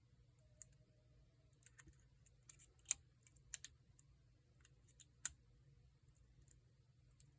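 Small, irregular metallic clicks and ticks of a hook pick working the security pins of a Paclock 90A-PRO padlock under a tensioner, the sound of pins being lifted and setting. Two clicks stand out as louder, about three seconds in and a little after five seconds.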